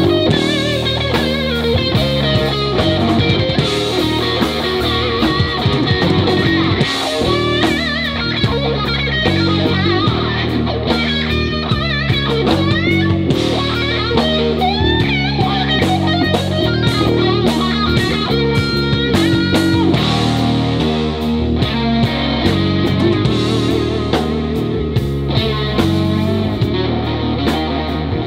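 Live blues-rock trio playing an instrumental passage: an electric guitar plays a lead line full of bent, wavering notes over electric bass and a drum kit, with no vocals.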